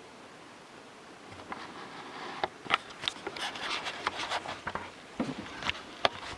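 Handling noise close to the microphone: irregular rubbing, scraping and sharp clicks, starting about a second in, over a faint low hum.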